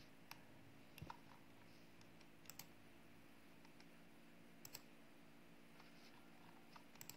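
Computer mouse clicking a few times, mostly in quick pairs, over a faint steady hum of room tone.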